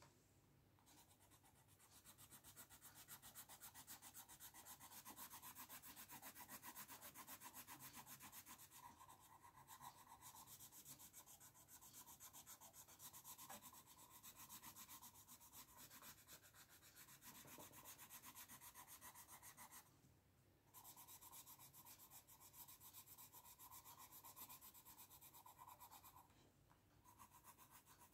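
Coloured pencil shading on paper: faint, quick back-and-forth scratchy strokes. They start about two seconds in, stop briefly about twenty seconds in, and pause again near the end.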